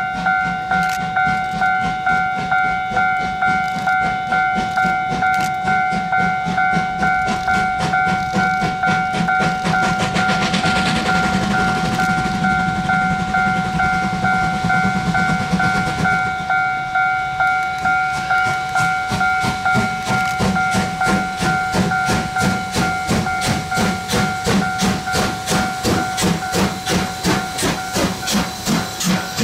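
Taiwan Railways CT273 steam locomotive approaching under power, its exhaust chuffing in a regular beat, with a burst of steam hiss about ten seconds in. Near the end the locomotive and carriages pass close by with a denser clatter of wheels, over a steady high tone.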